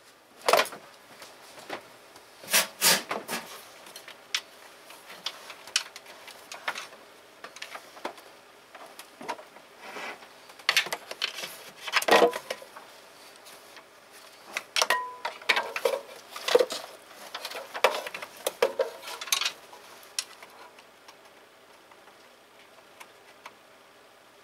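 Irregular clinks and knocks of metal hand tools and parts being handled during engine repair work, in scattered clusters with quieter gaps between.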